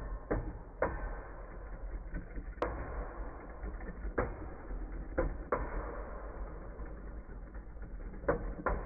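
Two Beyblade spinning tops, Wolborg and Hound Dog, whirring on a plastic stadium floor while rubbing against each other. About eight sharp clacks come at uneven intervals as they strike, the sharpest about two and a half seconds in.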